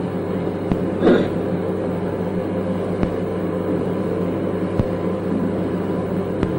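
Steady low electrical hum with hiss, the background noise of an old lecture-hall tape recording, with a brief voice about a second in and a few faint clicks.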